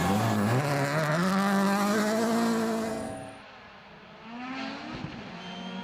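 Rally car engine accelerating, its pitch rising and then holding at high revs; about three seconds in the sound drops off abruptly and a fainter engine comes in, rising in pitch and then running steady.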